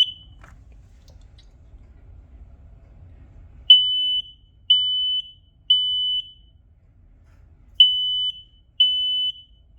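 Kidde 3010L photoelectric smoke alarm in test mode: a brief high chirp at the press of the test button, then, about four seconds in, the temporal-three fire pattern of loud, high, steady beeps. Three beeps come about a second apart, a pause follows, and then the next group of three begins.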